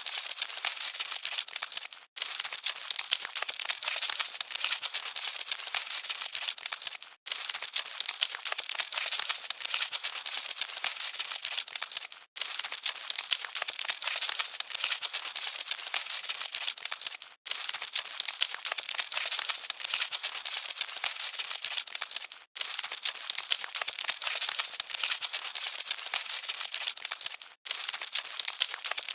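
Cockroaches scuttling: a dense, fine crackling rustle with nothing low in it, looped so that it cuts out for a moment about every five seconds.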